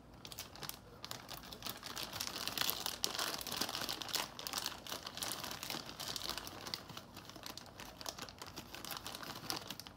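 Plastic zip-lock bags crinkling as hands rummage through them and open one, a continuous run of irregular crackles.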